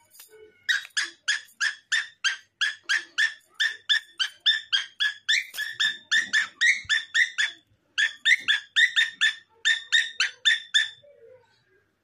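A pet parrot giving a long run of short, repeated calls, about three a second, with a brief break about two-thirds through.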